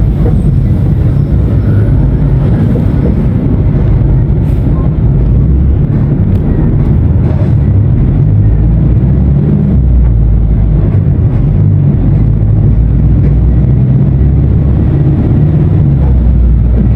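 Diesel engine of a Mercedes-Benz 1519 BlueTec 5 bus running, loud and low-pitched, with a steady throb.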